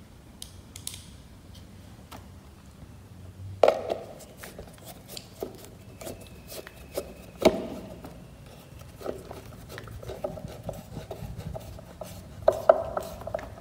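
Screwdriver clicking and scraping against a screw and the ceiling fan's canopy cover as the screw is turned in, with two sharper knocks about four and seven and a half seconds in.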